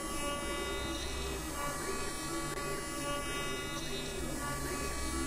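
CNC router spindle running a 6 mm two-flute ball nose end mill through wood, milling a rounded fillet along the edge of a slot. A steady whine, with several tones gliding up and down as the machine moves.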